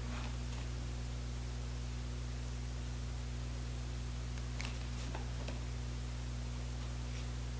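Steady low electrical hum with faint hiss, with a few faint clicks near the middle.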